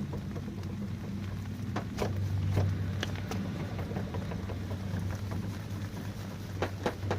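Mazda car on the move: a steady low drone, swelling slightly about two seconds in, with scattered clicks and rattles. The drone is the kind of hum a bad front wheel bearing makes.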